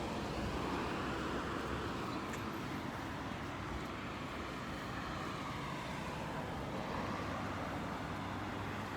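Road traffic on a city street: a steady hum of cars passing, with the sound swelling and fading as vehicles go by.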